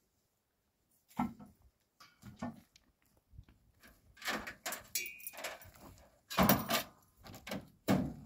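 Steel mesh gate clanking and rattling in a series of irregular metallic knocks, the loudest about six and a half seconds in.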